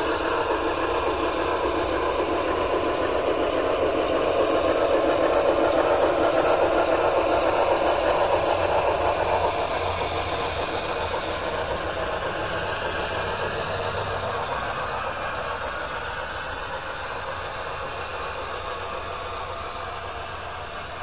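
HO-scale model train running along the layout's track: a steady whirring noise from its wheels and motor. It grows louder for the first several seconds, drops a little about halfway through, then fades.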